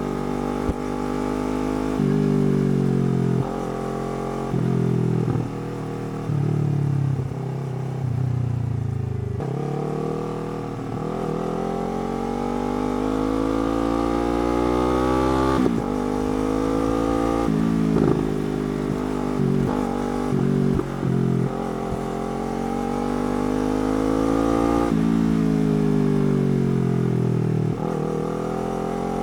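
Yamaha R3's parallel-twin engine through a slip-on exhaust, revving up through the gears, with quick drops in pitch at each upshift. It falls back once under deceleration before pulling again.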